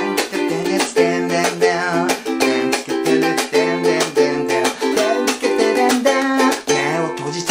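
Soprano ukulele strummed hard in a driving eight-beat rhythm, playing an intro chord progression of C, F, G7 and F.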